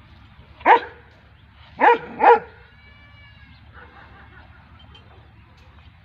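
Dog barking: three short barks, one about a second in and two in quick succession about a second later.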